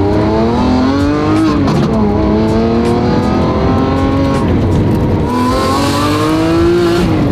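Lamborghini Aventador SVJ's V12 with its 1016 Industries exhaust, heard from inside the cabin, pulling hard through the gears. The pitch climbs and drops sharply at each upshift, about two and four and a half seconds in and again at the end.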